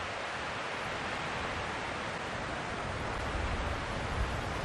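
Steady hiss of wind through trees, with a few soft low rumbles of wind on the microphone near the end.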